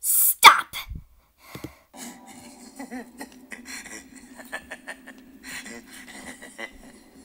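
A person's voice gives a short, loud vocal outburst with a bending pitch, then a steady low hum runs under faint breathy sounds and clicks.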